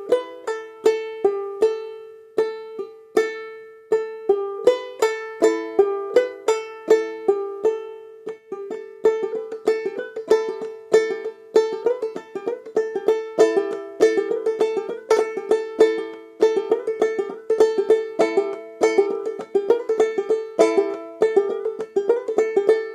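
Ukulele-family instrument tuned gAEa, played clawhammer style in the bum-ditty shuffle rhythm with left-hand pull-offs: a steady run of sharply plucked notes, several a second, over a recurring drone note.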